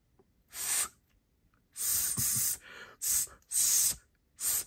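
Breath blown into a small BilletSpin metal keychain whistle: five short, hissy rushes of air with no clear whistle tone. The whistle is not being made to sound.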